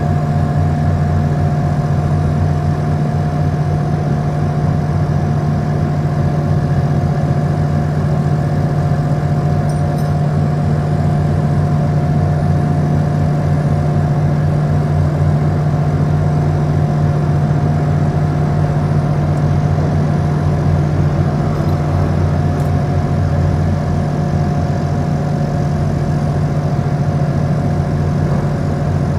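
Heavy crane diesel engines running at a steady speed during a hoist: a constant low drone with a steady whine above it.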